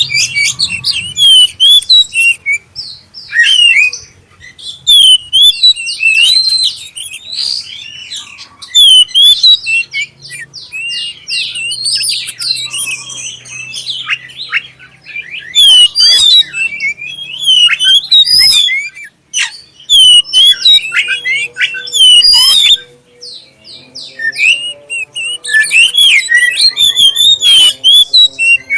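Oriental magpie-robin of the black-breasted form singing a loud, clear, varied song of whistles, slurred notes and chattering phrases, with short breaks between bursts.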